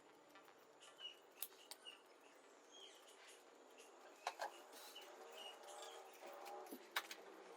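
Near silence: faint room tone with scattered short, faint chirps and a few light clicks.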